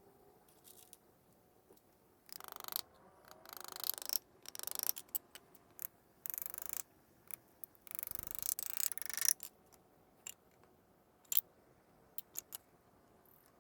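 A hand tool cutting or scraping wood in four rasping bursts, with scattered light clicks and knocks in between.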